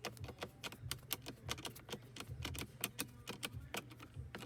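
Hand ratchet clicking rapidly in short runs, many sharp clicks a second, as a trim screw is turned in by hand.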